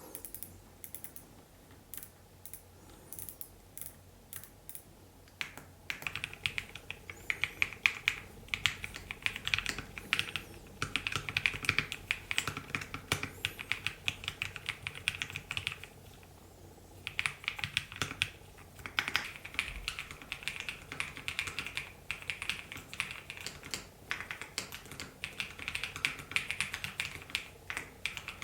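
Typing on an EPOMAKER x LEOBOG K81 mechanical keyboard. A few scattered key presses give way, about five seconds in, to fast continuous keystrokes, which pause briefly around the middle and then resume.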